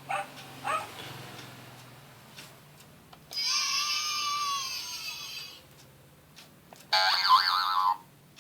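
Electronic sound effects from a children's sound book's sound chip: a steady, slightly arching tone lasting about two seconds, then a shorter warbling sound of about a second near the end.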